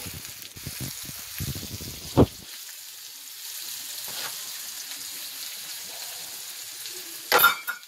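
Chicken wings frying in oil in a cast-iron skillet, a steady sizzle. A sharp knock comes about two seconds in, and a louder short clatter near the end.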